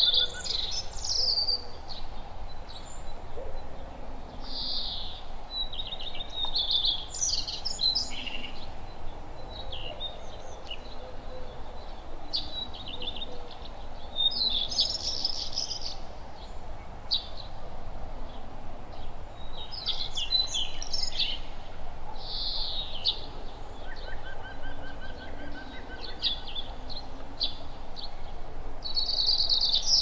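Songbirds chirping and singing in short bursts of rapid high notes, a new burst every few seconds, over a steady faint outdoor background hum.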